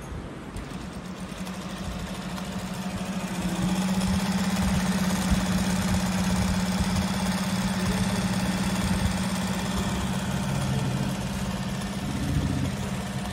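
JAGKING JK-5330D direct-drive industrial sewing machine running, stitching a zigzag seam through dark leather-like material. Its steady hum comes in about a second in, builds over the next few seconds, holds and drops away near the end.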